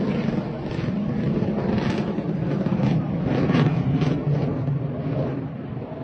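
Jet engine rumble, a steady low noise with gusty swells over it.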